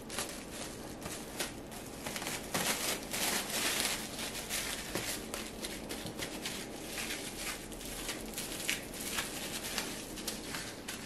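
Clear plastic cling film crinkling and rustling in a stream of quick irregular crackles as hands wrap it around a ball of sweet potato fufu, busiest around three seconds in.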